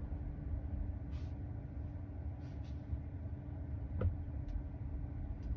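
Cabin sound of a Tesla Model 3, an electric car, creeping slowly at an intersection: a low steady rumble with a faint steady hum and no engine note. A single short click about four seconds in.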